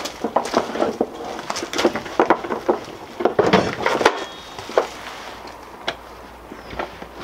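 Footsteps crunching on gravel, then a plywood box knocking as it is set down onto a plywood stand about three and a half seconds in. A few metal clicks follow as a flight-case butterfly latch is handled.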